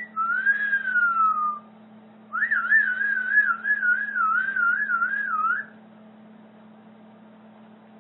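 Whistling: a short rising note, then a long slowly falling note, then after a brief pause a wavering note that wobbles up and down about two or three times a second for some three seconds. A faint steady hum runs underneath.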